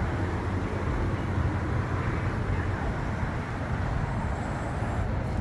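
Steady low rumble of outdoor road traffic, an even noise with no distinct events.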